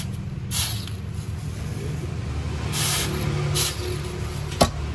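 Hot forged steel knife blade hissing in short bursts as its edge is dipped in a water quench trough to harden it, over a steady low hum; one sharp click near the end.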